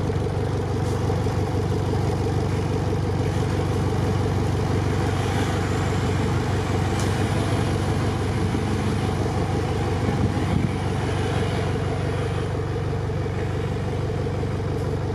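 Off-road vehicle engine running at a steady idle, a constant low drone with no revving.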